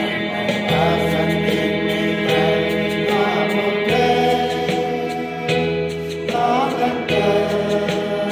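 Men's choir singing a hymn together, with an instrument holding steady sustained chords beneath that change every second or two.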